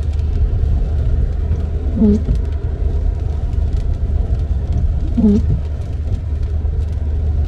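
Car windshield wipers sweeping twice, about three seconds apart, each stroke giving a short low juddering tone as the stiff blades drag across the wet glass. Underneath, a steady low rumble of road and tyre noise inside the moving car on a rain-wet road.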